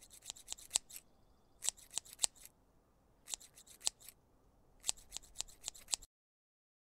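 Scissors snipping in four quick runs of several cuts each, with short pauses between the runs; the sound cuts off suddenly about six seconds in.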